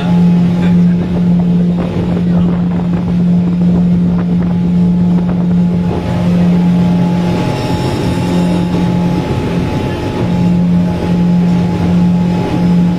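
Suzuki 100 hp outboard motor running steadily with the boat under way, a continuous even drone that wavers briefly around two-thirds of the way through.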